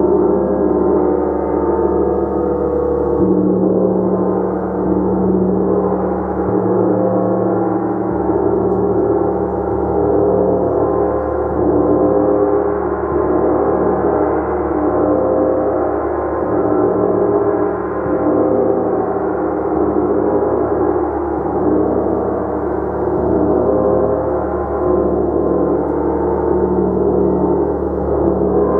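Gong being played continuously: a loud, sustained wash of many overlapping ringing tones that swells gently without dying away, with the low tones shifting a few seconds in.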